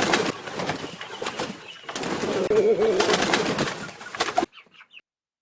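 Birds calling: a low warbling coo sounds twice, about three seconds apart, over a busy clatter of clicks. The sound cuts off suddenly about four and a half seconds in.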